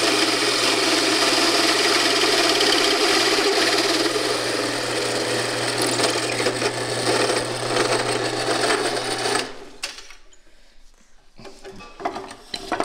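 Small portable drill press running a hole saw through a metal bracket plate: a steady motor hum under the grinding of the cut. The motor stops abruptly a few seconds before the end, followed by a few light metallic clinks.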